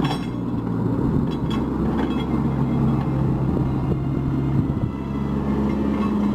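Diesel engine of a Cat 304 mini excavator running steadily while working, with a few sharp knocks.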